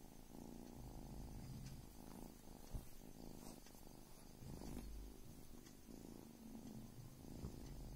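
A cat purring: a faint, low rumble that swells and eases in cycles, with one brief soft knock a little before the midpoint.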